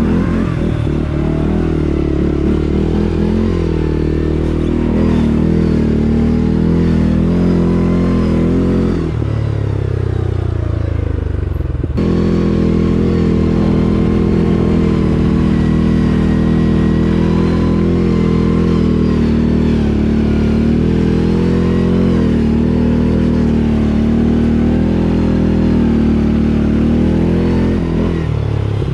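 ATV engine running under way on a trail, its revs rising and falling with the throttle. Around nine seconds in the revs drop away, then at about twelve seconds the engine sound jumps straight back to a steady run.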